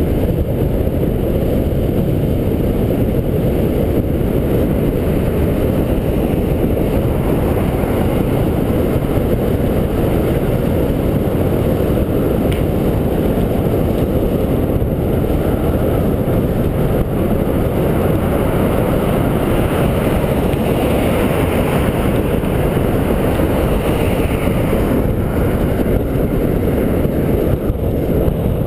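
Steady wind buffeting the microphone of a bike-mounted camera while cycling at speed, a dense low rumble with no breaks.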